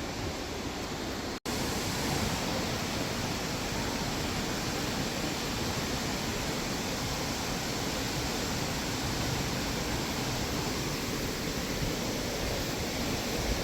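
Steady rushing roar of the La Fortuna waterfall, falling water heard close by, which cuts out for an instant about one and a half seconds in.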